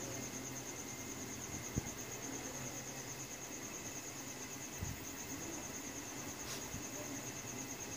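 Steady, evenly pulsing high-pitched trill of a cricket over a low steady hum, with one sharp click about two seconds in.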